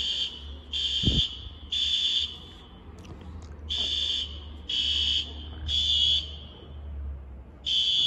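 Building fire alarm sounding: a high-pitched beep repeating in the temporal-three evacuation pattern, three half-second beeps, a short pause, then three more.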